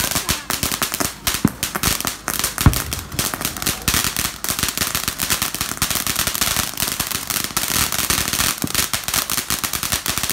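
Ground fountain fireworks spraying sparks with a dense, continuous crackle of rapid pops. There are two louder pops about one and a half and two and a half seconds in.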